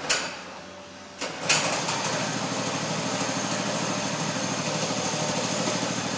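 Small pull-start engine on a homemade bar stool racer kart being started by recoil cord. A first pull doesn't catch. A second pull about a second and a half in fires it, and it settles into steady running.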